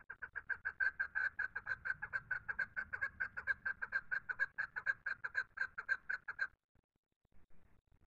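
Chukar partridge calling: a fast, even run of short chuk notes, about six a second, that stops suddenly about six and a half seconds in.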